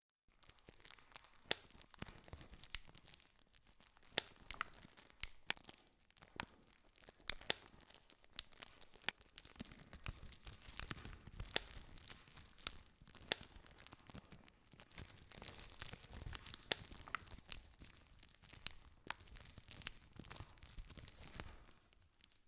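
Wood campfire crackling: frequent, irregular sharp pops and snaps over a soft hiss of burning.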